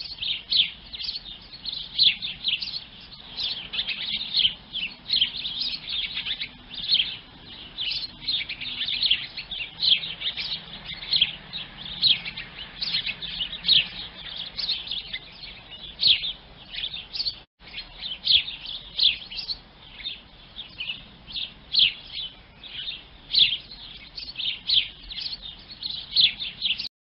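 Sparrows chirping busily, many short quick chirps overlapping several times a second, with a brief break about two thirds of the way through.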